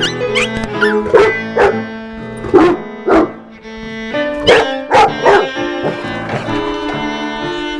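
A dog barking about seven times in two short runs, the first in the opening seconds and the second a little past halfway, over background music with sustained strings.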